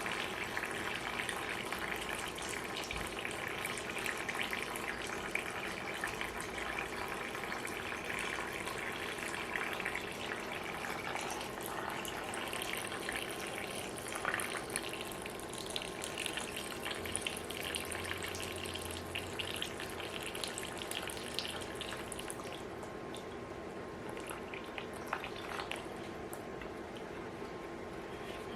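Leftover engine coolant draining out of a 5.2 L Magnum V8 block and splashing into a drain pan: a steady trickle with scattered drips, thinning a little near the end.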